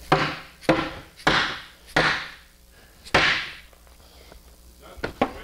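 Orange dead blow hammer striking the side of a kitchen cabinet box five times, about one blow every half second to a second, each a sharp knock with a short fading ring, knocking the cabinet panels together during assembly. A few lighter knocks follow near the end.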